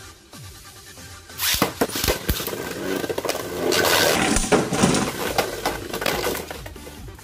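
Two Beyblade Burst spinning tops, one of them Tornado Wyvern, are launched into a plastic stadium about a second and a half in. They then spin, scrape and clash against each other and the stadium wall with many sharp clicks, and the noise eases near the end.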